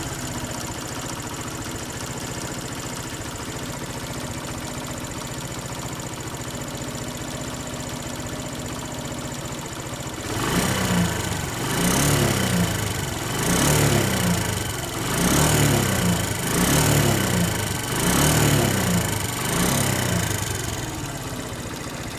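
SYM XS125 motorcycle engine idling, then blipped up and down about seven times, roughly every second and a half, before settling back to idle near the end. It has a knock that the owner is sure comes from neither the valves nor the chain.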